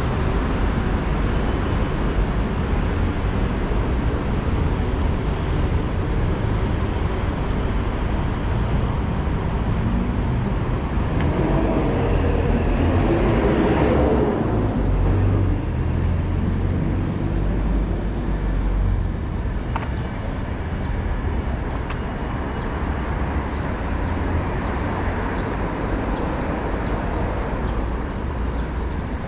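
Steady road-traffic noise from a multi-lane street, with a deep rumble throughout. A vehicle passes close by about twelve seconds in, its engine pitch shifting as it goes.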